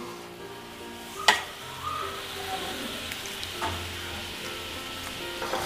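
Jaggery melting in a little water in a non-stick frying pan, the syrup simmering with a steady sizzle. A single sharp click comes about a second in.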